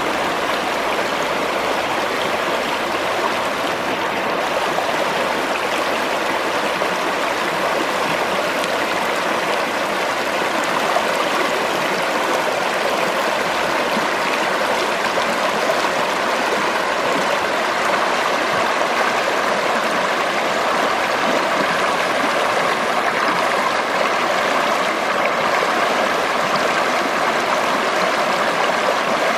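The Schwechat river flowing, a steady rush of running water.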